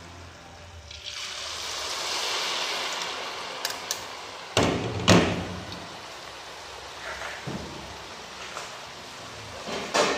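Hot oil in a wok sizzling loudly as a plateful of stringy food is tipped in, swelling from about a second in and then settling into a steady bubbling fry. Two sharp knocks come in the middle and another near the end.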